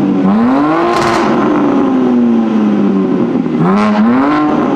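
BMW G80 M3's twin-turbo inline-six revving through a Valvetronic Designs equal-length midpipe: the pitch climbs for about a second, falls away slowly, then climbs again in a second rev near the end.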